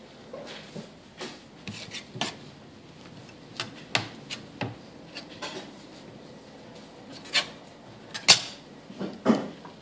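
Scattered light taps, clicks and rustles of a cigar being hand-rolled: tobacco leaf handled, smoothed and pressed against the rolling board, with the sharpest tap near the end.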